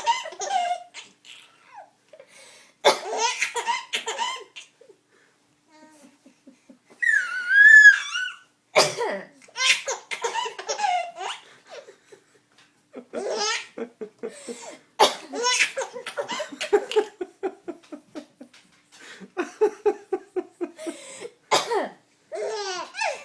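A woman coughing in short fits and a baby laughing hard at the coughs, in bouts every few seconds. The loudest moment is a high squeal about seven seconds in.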